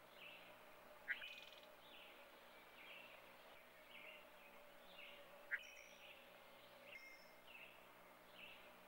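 Faint birds chirping: short soft chirps repeating a little under once a second, with a sharper, louder note twice.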